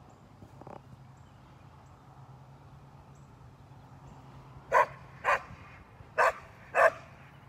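A dog barks four times in two quick pairs while running an agility course, starting about five seconds in.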